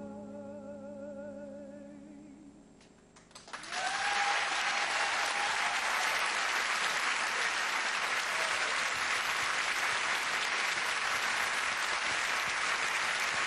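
A man's final held sung note with a wide vibrato over a low sustained accompaniment, fading away. About three and a half seconds in, studio audience applause starts suddenly and carries on steadily, with a whoop near its start.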